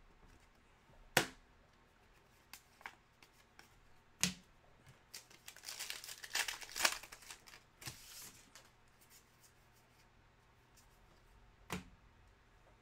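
Foil wrapper of a Panini Contenders basketball trading-card pack being torn open and crinkled, for a few seconds around the middle. A few sharp taps come before and after it.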